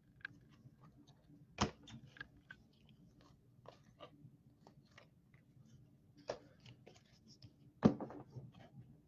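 Trading cards in plastic sleeves and a rigid top loader being handled: faint plastic crinkling and clicking, with two sharper knocks, one under two seconds in and a louder one near the end.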